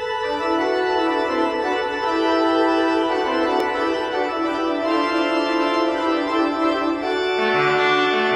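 Organ playing a slow chorale prelude in sustained, held chords. Lower bass notes enter about seven and a half seconds in.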